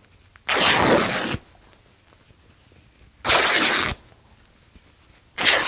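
A printed quilting-fabric panel being torn by hand along pre-cut notches into strips: three quick rips, each under a second, the third just starting near the end.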